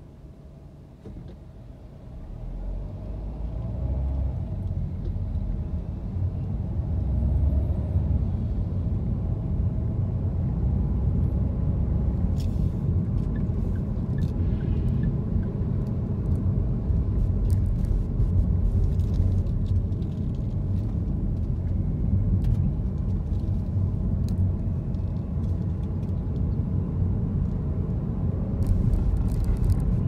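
Car pulling away from a stop and driving on, a low road-and-engine rumble that grows louder over the first few seconds and then holds steady. A few faint clicks come through midway and near the end.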